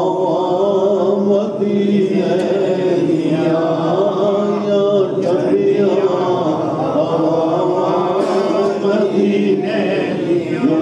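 A man's voice chanting a devotional recitation, melodic and continuous with long held notes that bend slowly in pitch.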